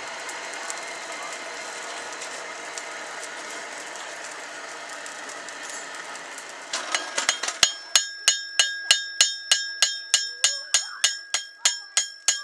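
A hand-held hammer striking a hot knife blade on a steel anvil, about three blows a second with a bright ring after each, starting about seven seconds in after a steady hiss.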